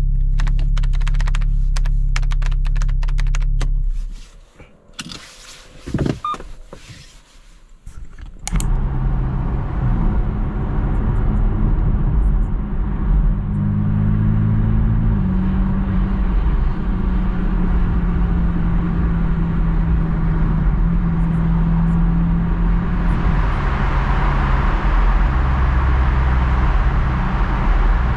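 Porsche 718 Boxster GTS 4.0's naturally aspirated flat-six engine running on the road, with road noise. Its note shifts up and down in steps several times. A quieter stretch of about four seconds early on holds only scattered clicks.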